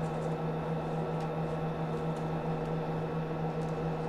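Steady electrical hum with a strong low tone and a hiss over it, and a few faint clicks.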